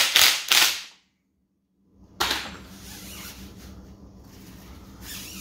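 Impact wrench hammering in about three short bursts as it cinches down a motorcycle fork's upper cap, then cutting off. About two seconds in comes a single sharp knock, followed by faint handling noise.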